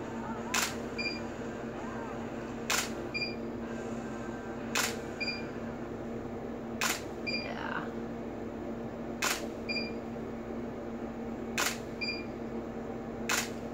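Camera shutter firing about every two seconds, seven shots in all. Each shot is followed about half a second later by a short high beep, typical of a studio strobe signalling that it has recycled. A steady low hum runs underneath.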